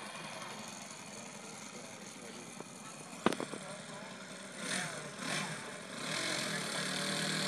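Small RC model airplane engine idling as the plane lands and taxis on grass, getting louder from about six seconds in as it comes closer. A sharp click about three seconds in.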